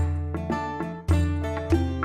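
Background music: a plucked string instrument playing a melody over a steady low beat.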